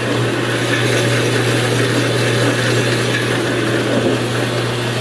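Jet 8-inch by 13-inch horizontal bandsaw running under power, its 1.5-horsepower motor and belt drive giving a steady low hum with an even whir over it.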